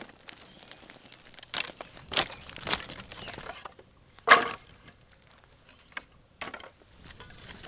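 Dry twigs and sticks snapping and knocking together as kindling and split wood are laid on a campfire. There are several sharp cracks, the loudest a little over four seconds in.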